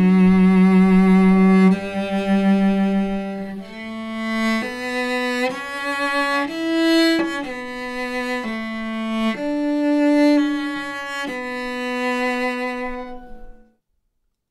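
Solo cello playing bowed notes with vibrato, heard as an unprocessed mono recording made with a Shure PGA81 condenser microphone. A long held low note is followed by a melodic line of shorter notes stepping up and down. It stops about a second before the end.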